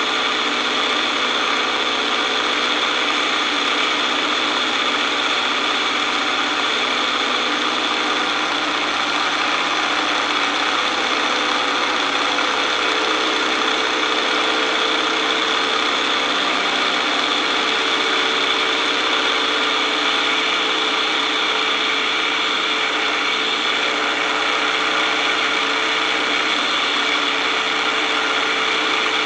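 Boeing-Stearman Model 75 biplane's radial engine running steadily in flight, mixed with a constant rush of air over the wing-mounted camera. Its note shifts slightly about halfway through.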